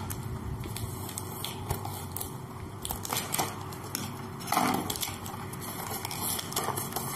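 Hands opening a cardboard shipping box and pulling at its packing tape: scattered crackles, scrapes and light taps of cardboard, with a louder crackle about four and a half seconds in.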